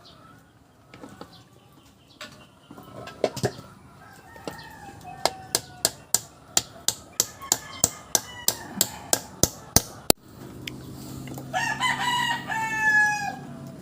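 A run of sharp, evenly spaced taps, about three a second, ends with a louder one. Then a rooster crows near the end over a low steady hum.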